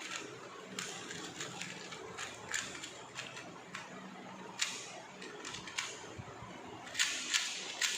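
Plastic clicks and clacks of a 2x2 Rubik's cube's layers being turned fast by hand during a timed solve, in irregular flurries that come quicker near the end.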